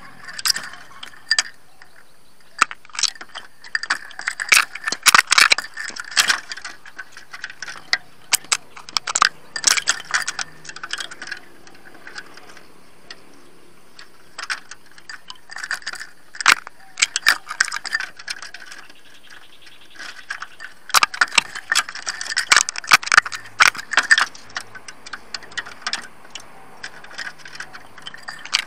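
Wire bird cage clinking and rattling as a caged spotted dove moves about in it: irregular bursts of sharp clicks and metallic clatter, separated by quieter gaps.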